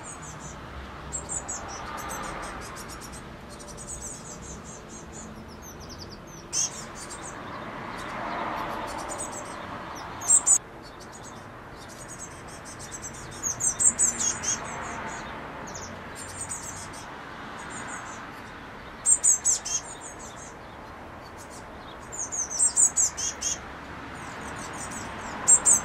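Blue tits calling: repeated rapid series of high, thin chirps, each burst lasting about a second, over a soft rushing background that swells and fades every few seconds.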